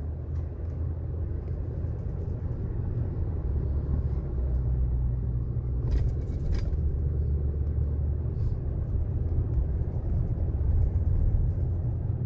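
Steady low car-cabin rumble of engine and tyres while driving slowly in traffic, heard from inside the car, with a couple of brief clicks about six seconds in.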